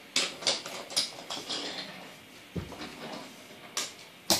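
Scattered light clacks and knocks of toys on a wooden floor: a quick run of clicks at the start, a dull thump midway, and two sharper knocks near the end.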